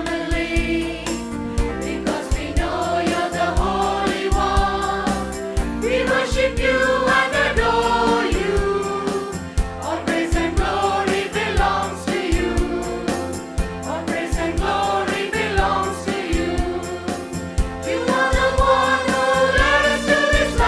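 Choir singing a Christian song over instrumental accompaniment with a steady beat.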